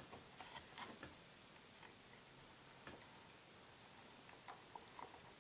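Near silence with faint, scattered small clicks and taps: a small screw being started by hand into a fiberglass model-airplane cowl.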